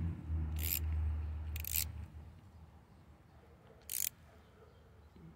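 Metal socket clicking and scraping on the float-bowl bolt of a Honda HR215 lawnmower carburetor as the bolt is turned snug by hand: three short sharp clicks, about one and two seconds in and again about four seconds in. A low steady hum underneath fades out about two seconds in.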